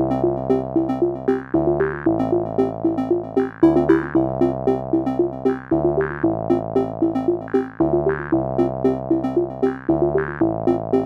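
Background music: a synthesizer track with a quick repeating arpeggio over held chords that change about every two seconds.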